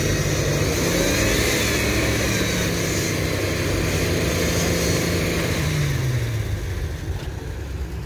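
Jeep engine revving up about a second in, held at high revs for several seconds, then easing off: the pull of a tow-strap recovery of a stuck Jeep in snow.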